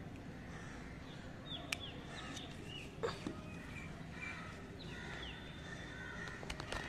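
Birds calling in the background with short chirps repeated several times, over a steady low background noise, and a few sharp clicks.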